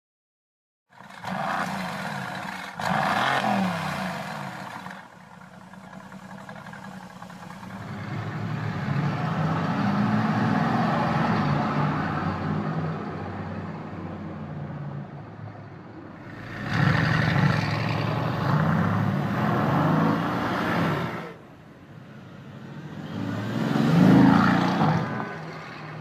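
Mercedes-AMG GT's twin-turbo V8 starting up about a second in with a loud flare, then settling to idle and being revved several times, the loudest rev near the end.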